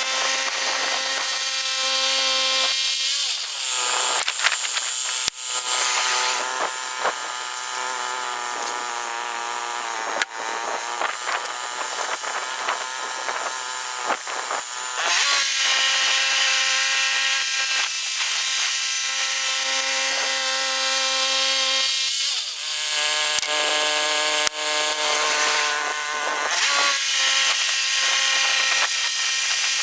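Woodland Mills HM122 portable band sawmill running steadily, its band blade sawing through a pine log. Twice the sound shifts and grows hissier for a while, as the blade works through the cut.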